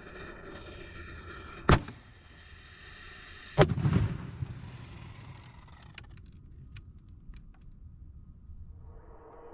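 Consumer firework canister shell going off inside an HDPE mortar tube held in a wooden rack: a hiss, then a sharp bang about two seconds in, then a bigger, deeper blast about two seconds later that rumbles away, with a few scattered crackles after it. The tube is bursting and splitting the rack.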